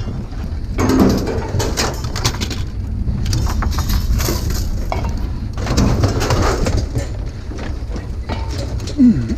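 Scattered knocks, clanks and rattles of discarded junk being picked through and sorted by hand, over a steady low rumble.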